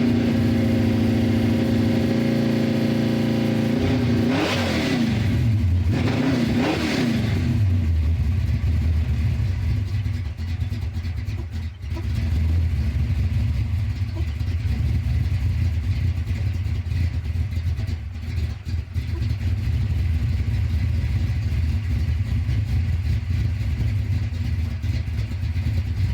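Mustang's 332 stroker V8 running on a cold start: a raised, steady fast idle, two quick revs about five and seven seconds in, then settling into a low, choppy, lumpy idle from its aggressive cam.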